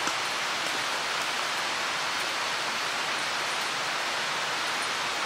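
Mountain stream rushing steadily, an even hiss of flowing water.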